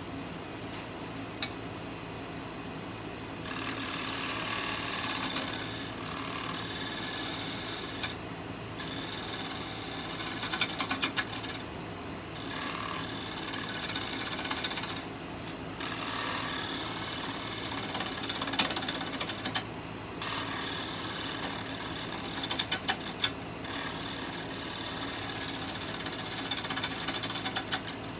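A wood lathe runs with a steady motor hum while a bottom-feeder turning tool cuts the bottom of a pear bowl. From a few seconds in there are several hissing cutting passes with pauses between them, broken by short bursts of rapid clattering where the tool bounces out on a ridge left in the bowl's bottom.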